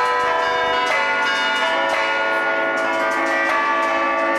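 Twelve church tower bells played from a baton keyboard, striking a festive allegrezza tune: quick strikes on different bells overlap, each note ringing on under the next.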